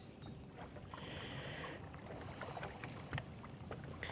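Faint ambience on a fishing boat: a low steady rumble with scattered small clicks and taps, and a brief hiss about a second in.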